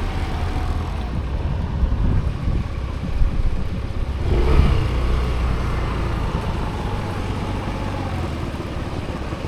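Vehicle driving on a road: a steady low engine and road rumble, swelling briefly about four and a half seconds in.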